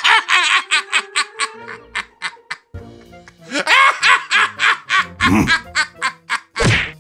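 A cartoon caveman laughing loudly at the other, a rapid run of 'ha-ha' pulses in two bouts, the second starting about three and a half seconds in, over background music.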